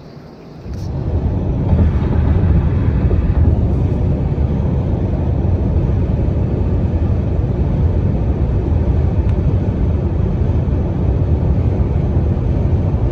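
Car travelling at highway speed: a steady low rumble of road and wind noise that comes in under a second in.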